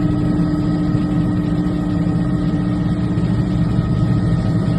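A vehicle engine idling, a steady low hum that does not change.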